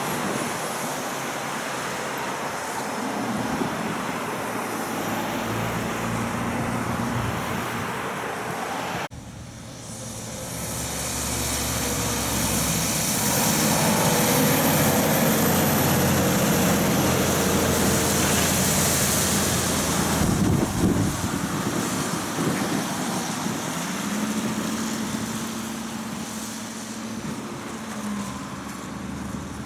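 Heavy stock trucks passing on a wet road. First an engine note as a truck and trailer pulls away. After an abrupt break about nine seconds in, a Renault truck approaches and passes, and its engine and the hiss of its tyres on the wet surface are loudest about halfway through. Near the end there is a steady engine drone from another truck.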